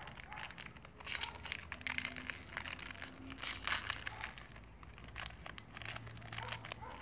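Plastic wrapper of a Be-Fit cereal bar crinkling and crackling as it is torn open by hand, busiest in the first half.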